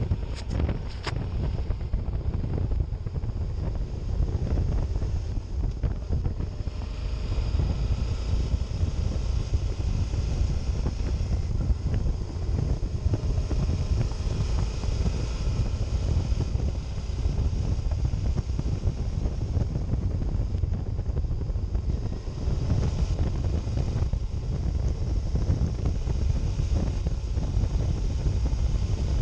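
Wind buffeting an action camera's microphone at road speed on a motorcycle, with the Suzuki DL650 V-Strom's V-twin engine running steadily underneath.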